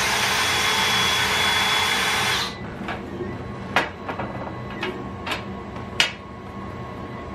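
Cordless drill running at a steady speed, spinning a bolt into a nylon lock nut, then stopping about two and a half seconds in. A few light, sharp clicks follow.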